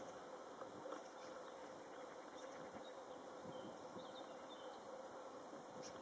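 Faint outdoor background: a steady low buzzing hum, with a few faint high chirps around the middle and a short tick near the end.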